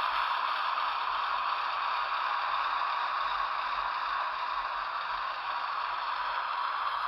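Steady hissing hum of a GE diesel at idle, played by the Soundtraxx Tsunami sound decoder through the small onboard speaker of an HO-scale Athearn Genesis ES44AC model locomotive.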